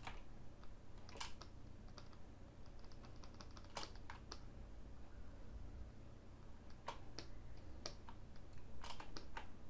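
Faint, scattered clicks of a computer keyboard and mouse, a single click or two every second or so, over a low steady hum.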